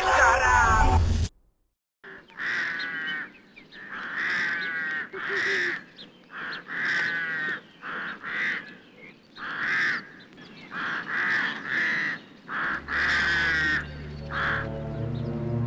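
Crows cawing over and over: a long run of harsh calls, one about every half second to a second, after a music cue cuts off about a second in. Low, dark droning music comes in under the last calls near the end.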